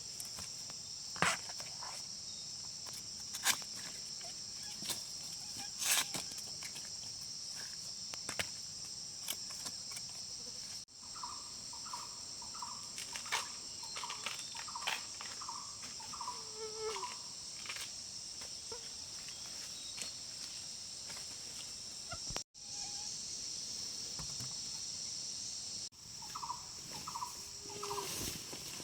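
Steady high-pitched chorus of insects, with scattered sharp knocks and cracks. Runs of short, repeated animal calls come about halfway through and again near the end.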